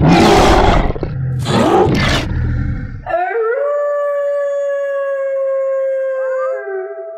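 Werewolf creature giving a few harsh growls, then one long wolf-like howl that rises at the start and holds steady for about four seconds.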